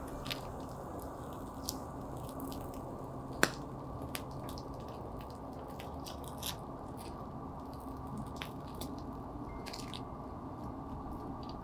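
Scattered small clicks and taps over a steady low hiss, with one sharper click about three and a half seconds in.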